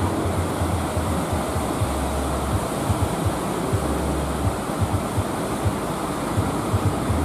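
Wind buffeting the microphone with low gusty thumps over the steady wash of a choppy sea.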